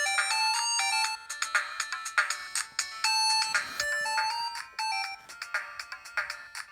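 A preloaded ringtone playing through the small loudspeaker of a Huawei G7002 mobile phone: a synthesized melody of quick notes, thin and without bass. It grows quieter and sparser over the last couple of seconds.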